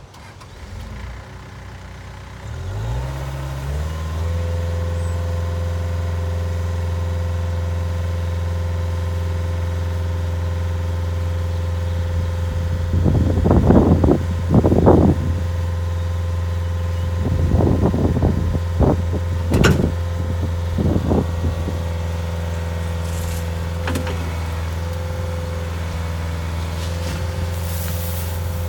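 Cat 277C skid steer's diesel engine starting about three seconds in, rising in pitch as it catches, then running steadily. Several short louder bursts come between about 13 and 21 seconds.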